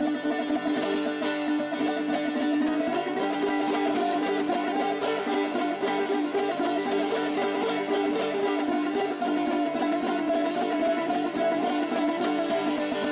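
Shurangiz, a long-necked Persian plucked lute, played in a solo improvisation: rapid, even picking over a steady drone note, with a melody line moving above it.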